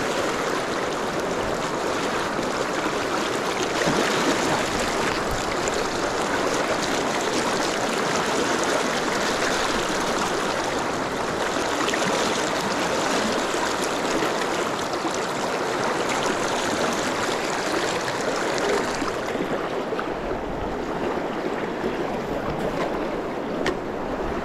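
Steady rush of fast, shallow river water in a riffle. About nineteen seconds in, the highest part of the hiss drops away.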